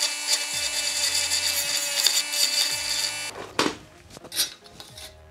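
Cordless rotary tool running with a sanding head on the edge of a steel strip: a steady whine that stops about three seconds in. Then two short noises as the strip is handled.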